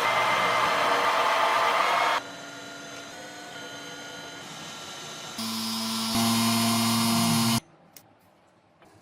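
Workshop power tools running in several abruptly cut stretches: a loud, noisy run, then a quieter steady motor hum, then a louder steady hum that stops suddenly about three quarters of the way through, leaving near silence with a few faint clicks.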